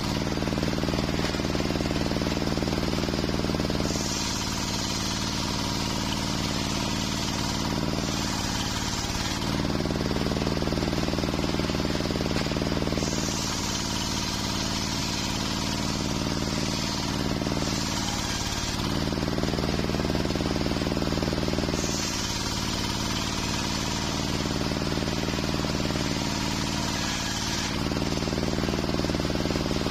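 Large sawmill circular saw ripping waru wood into rafter stock. Its motor drones steadily, and several times a gritty, hissing cutting noise sets in for a few seconds as the blade goes through the wood, with the drone dropping slightly in pitch under the load.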